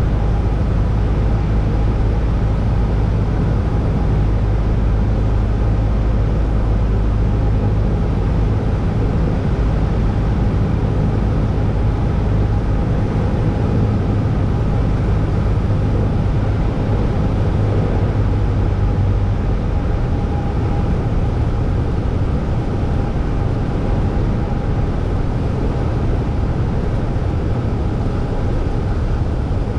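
Single-engine Cessna's piston engine and propeller running steadily, heard inside the cabin. About two-thirds of the way through its low note weakens as power comes back on short final for landing.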